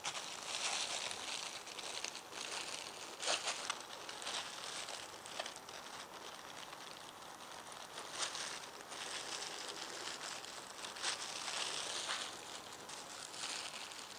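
A cleaver slicing meat away from the crisp skin and bones of a roast duck on a wooden chopping board, with the plastic gloves over the hands crinkling: a dense scratchy, crackly noise that swells and fades, with a few sharp clicks.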